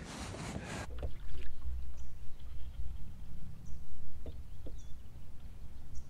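A brief rustle of handling at the start, then a low, gusting rumble of wind on the microphone and lake water lapping against the boat's hull, with a few light knocks.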